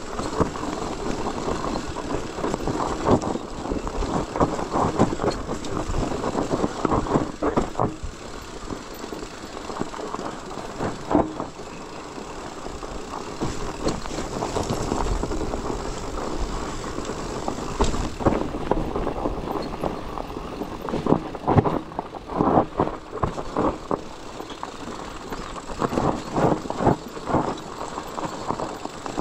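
Bikepacking bike ridden over a rough mountain trail: steady tyre noise with irregular clattering and rattling from the bike and its loaded bags over the bumps.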